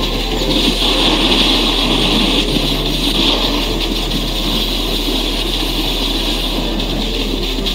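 Steady rushing and scraping of snowboards sliding over the snow, with air rushing past the moving microphone and a constant low hum underneath.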